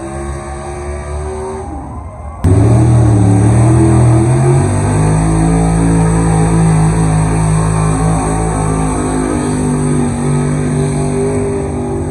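Pickup truck engine running hard at high revs, pulling a weight-transfer sled. Its pitch drops, then about two and a half seconds in it turns suddenly louder and holds a steady, strained note.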